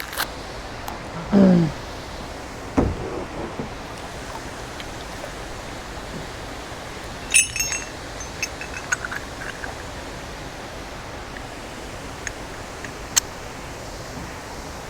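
Steady rushing of water from a nearby dam, with a few sharp knocks and clicks scattered through it and a short vocal exclamation about a second and a half in.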